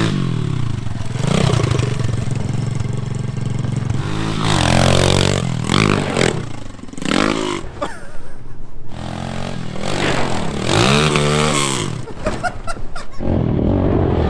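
Pit bike engine revving hard and dropping back several times, its pitch rising and falling with each burst of throttle.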